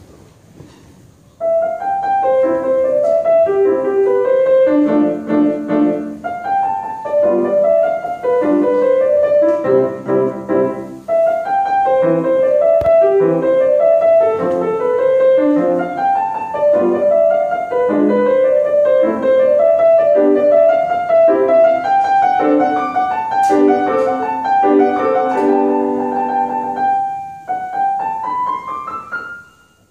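Solo grand piano playing a melodic piece. It starts about a second and a half in, after a short quiet, and near the end a quick rising run of notes climbs up the keyboard.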